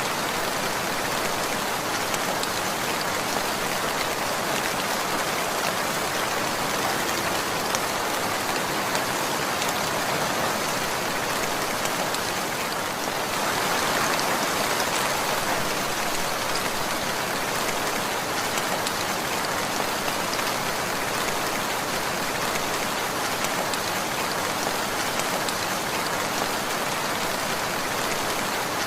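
Steady rainfall, a dense even patter of drops on surfaces that swells a little about halfway through.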